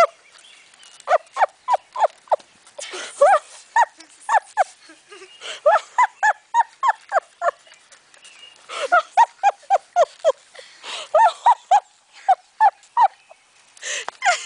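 Golden retriever puppies yelping and whining: short, high, pitched cries that come several a second in bursts, with brief pauses between the bursts.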